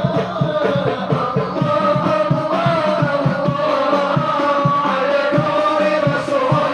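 A group singing sholawat devotional songs together, with a steady beat of hand drums.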